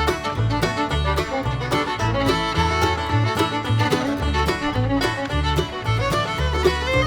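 Upbeat background music with fiddle and plucked strings over a steady beat.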